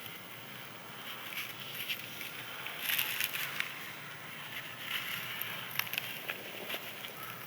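Crisp, dry sand-cement being crushed and crumbled: continuous crackling full of small crunches, with a denser burst of crunching about three seconds in.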